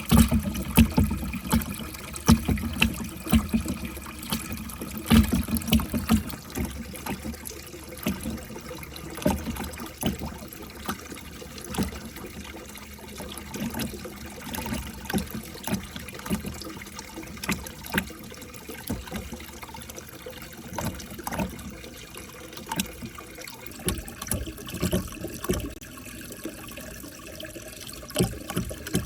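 Water trickling through a marble-run track, with many light knocks of balls bumping and clattering along it, busiest and loudest in the first several seconds.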